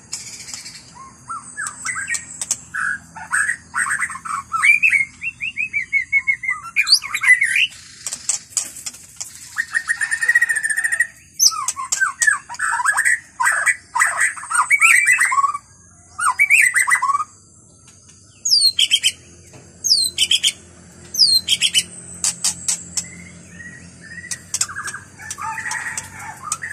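White-rumped shama singing: phrases of rich, varied whistles and rapid chattering notes with short pauses between them, and a few sharp downward-sweeping notes in the last third.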